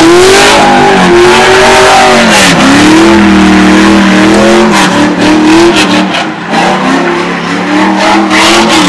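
Car engine revved hard and held at high revs, dipping briefly about two and a half and six seconds in, with tyre squeal from a burnout, and dropping off at the very end.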